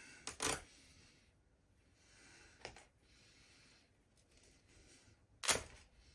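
A stuffed plush toy being torn apart by hand: three short, sharp rips of its fabric and seams, the loudest near the end, with breathing in between.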